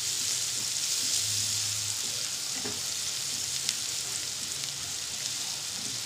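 Sliced onions frying in hot cooking oil in a non-stick frying pan, stirred with a spatula: a steady sizzling hiss with a few small pops.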